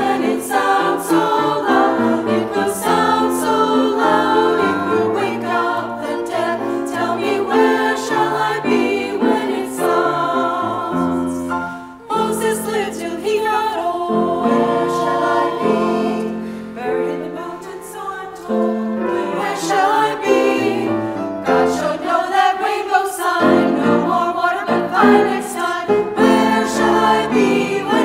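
Women's chorus singing an a cappella-style spiritual in parts, over low sustained accompanying bass notes, with a brief break about twelve seconds in.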